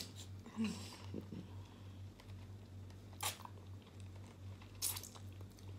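Quiet eating sounds of a man biting and gnawing chicken meat off the bone by hand, with a couple of short smacking sounds about three seconds in and near the end, over a low steady hum.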